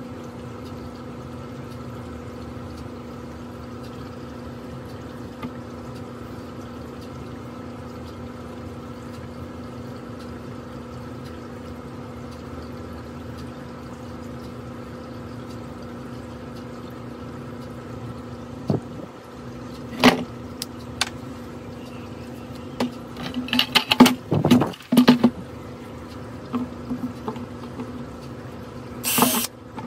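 A steady hum with a few level tones. After about 18 seconds come knocks and clatter as a plastic bucket is handled and turned over. Near the end a hand drill starts boring into the bucket's plastic bottom in short bursts.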